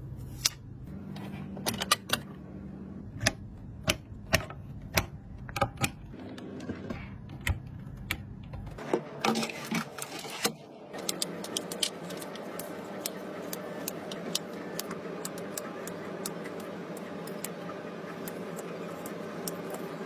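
Sharp clicks and taps of computer parts being handled and fitted together during a PC build. About eleven seconds in, a steady hum starts, with lighter clicks continuing over it.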